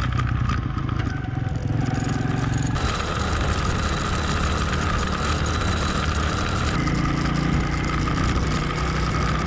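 Motorcycle engine running steadily while riding, heard from on the bike with road and wind noise. The engine note shifts about three seconds in and again near seven seconds.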